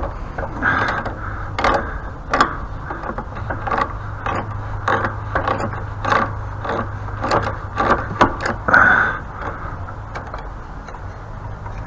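Metal tool working a stuck, corroded bolt on a pressure washer: irregular clicks and short scrapes of metal on metal, over a steady low hum.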